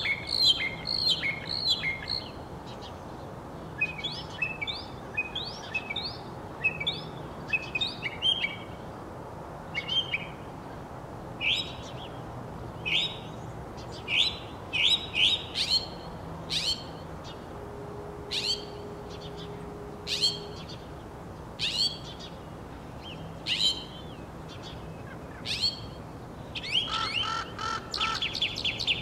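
Northern mockingbird singing: short bright phrases, each repeated several times before switching, then sharp single notes about once a second, and a fast run of rapidly repeated notes near the end.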